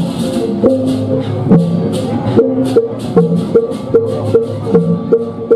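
Balinese processional gamelan music: gongs and metal-keyed instruments playing a repeating melody over a steady beat of about two to three strokes a second, with clashing hand cymbals.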